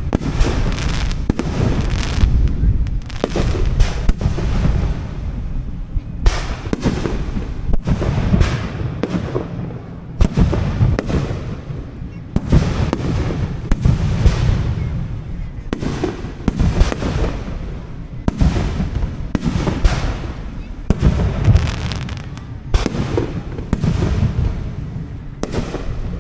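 Fireworks display: aerial shells bursting one after another, a continuous run of booms about one to two a second with rumbling tails between them.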